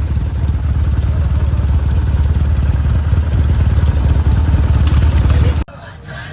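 Off-road vehicle engine running steadily with a low rumble, cut off abruptly near the end.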